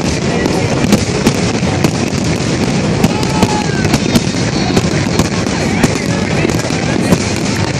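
Aerial fireworks display going off without a pause: many sharp bangs and crackles in quick, irregular succession as the shells burst.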